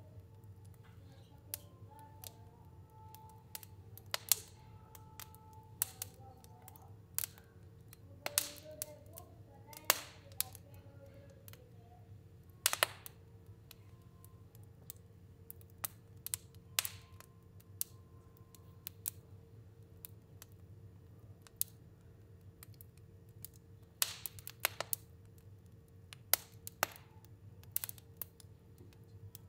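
Fire burning in a stove, crackling with irregular sharp pops over a low steady hum.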